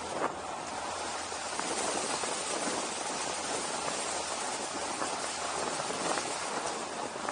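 Steady rushing wind noise on the camera's microphone during a fast descent, with a few faint ticks.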